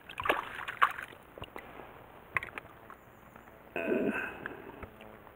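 Water splashing and sloshing as a hooked brook trout thrashes at the surface while it is landed on a fly rod, with sharp splashes in the first second. Another brief louder burst of noise comes about four seconds in.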